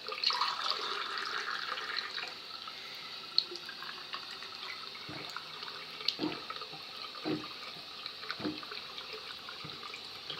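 Water from a tap running and splashing, loudest in the first two seconds, then a run of about five short gulps roughly a second apart as water is drunk down.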